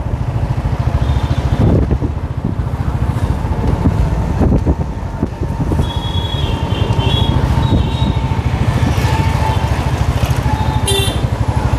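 Motorcycle on the move: a steady low rumble of wind buffeting the microphone over the bike's engine, with street traffic around it.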